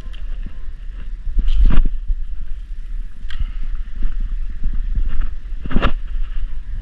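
Wind rumbling steadily on the microphone, with two short, sharper sounds about two seconds in and near six seconds.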